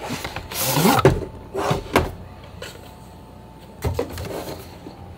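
Cardboard packaging handled: the lens's black inner box slides out of its cardboard outer box with a scraping slide that rises in pitch about a second in. A few light knocks of the box being handled follow, one near the end.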